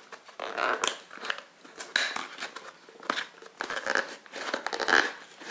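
Sticker seals on a small cardboard box being torn through and the cardboard flaps worked open: irregular tearing, scraping and crinkling of paper and card, with a few sharper clicks.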